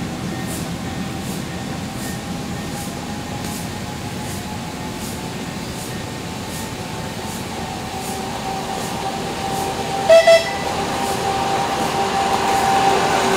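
Ride-on miniature locomotive running toward the listener, its steady motor drone growing louder over the last few seconds. There are two short horn toots about ten seconds in, and a faint regular clicking through the first half.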